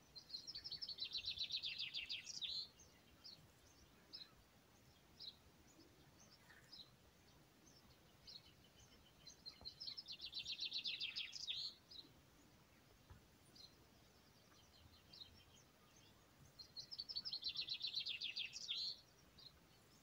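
A songbird sings a short, rapid trill of high notes lasting about two and a half seconds, three times at intervals of roughly seven to eight seconds, with faint scattered chirps in between.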